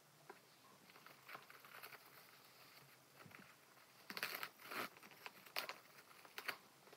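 Quiet crinkling of thin plastic wrap being pulled off a handbag's metal chain strap, with light clicks of the chain links. A few louder bursts of rustling come in the second half.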